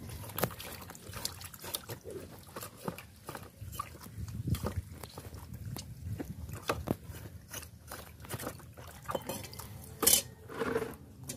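Pig offal being rubbed and squeezed by hand with lime and salt in water, making irregular wet squelches, sloshes and small clicks. There is a louder knock near the end.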